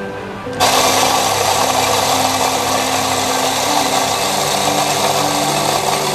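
Commercial electric coffee grinder grinding beans. Its motor starts suddenly about half a second in and runs steadily on a 6-second timer, dosing a single cup.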